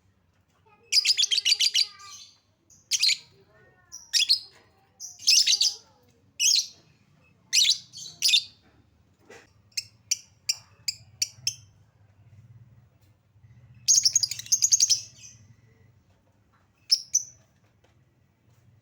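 Lovebird calling: shrill, high-pitched chattering bursts, each up to about a second and a half long and spaced a second or so apart. A run of short single chirps comes in the middle, and a longer burst comes near the end.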